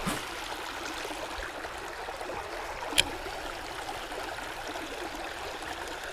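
Creek water flowing steadily, with one sharp click about halfway through.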